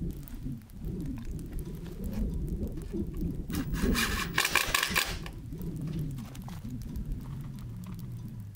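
Sheet-metal siding panel wobbling and rumbling as it is held and pressed against the wall. About three and a half seconds in, a cordless drill driver runs a screw into the panel for about a second and a half.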